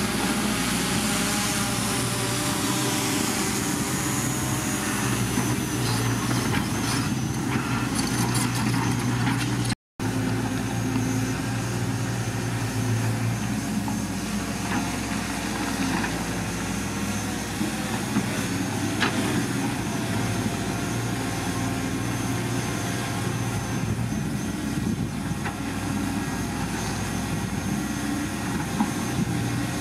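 Diesel engine of heavy earth-moving machinery running steadily, with a few faint knocks and a brief total dropout about ten seconds in.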